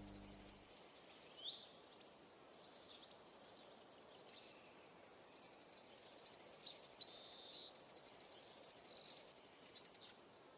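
Songbird chirping: a string of quick high chirps and short phrases, then a rapid trill near the end, over faint outdoor background noise. A low steady hum cuts off within the first second.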